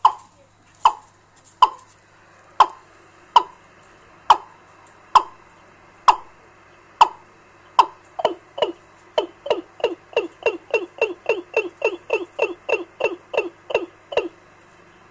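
A recorded fowl call used as a bird-trapping lure, played from a small amplifier's digital audio player through a loudspeaker. It is a series of short, downward-sliding calls, about one a second at first, speeding up to about three a second from about halfway and stopping shortly before the end.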